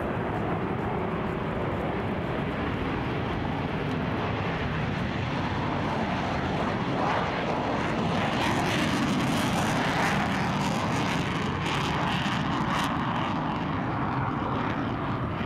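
Jet noise from a pair of F-4 Phantom II fighters flying past in close formation, a steady rush of their J79 turbojets that swells and turns harsher with some crackle about halfway through as they pass closest, then eases off.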